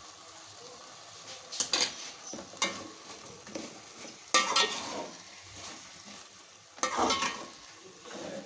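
A metal spoon or spatula stirring and scraping food in a pan in several loud strokes, over a low sizzle of frying.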